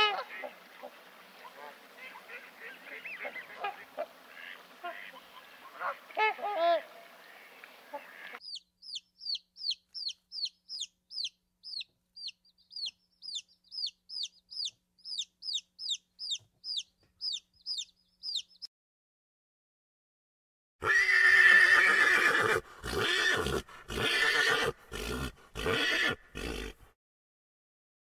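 A run of animal sounds: a swan's faint call in the first few seconds, then chicks peeping steadily, about two high falling peeps a second for some ten seconds. After a short silence comes a pony's loud, broken whinnying, the loudest sound.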